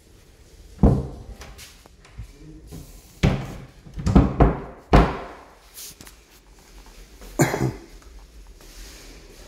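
Closet door being shut: a thud about a second in, then a cluster of several more thuds and knocks a few seconds later and one more near the end.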